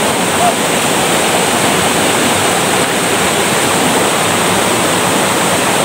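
Shallow rocky stream rushing past close by, a loud, steady wash of water.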